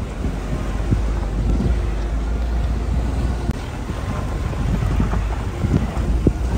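A vehicle driving over a rough, rocky gravel road: a steady low rumble with scattered knocks and rattles, and wind buffeting the microphone.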